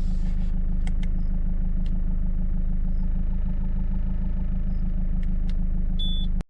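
Peugeot 308 diesel engine idling steadily, with a few light clicks and a short high beep near the end.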